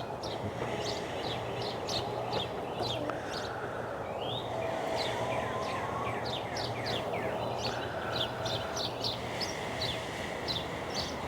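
Birds chirping over and over, quick short falling chirps several a second, over a steady low background hum.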